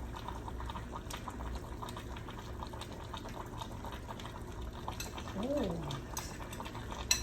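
Faint bubbling and light clicks from a hot pot of sinigang soup over a steady low hum. A short hummed 'mm' rises and falls about five and a half seconds in, and a sharp clink comes near the end.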